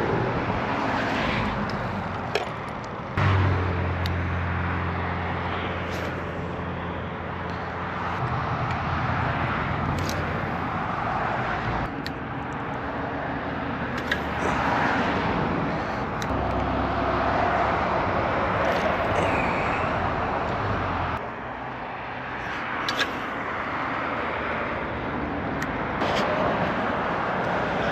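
Steady outdoor noise with a low engine drone that comes in about three seconds in and fades out around twenty seconds later, with a few faint clicks.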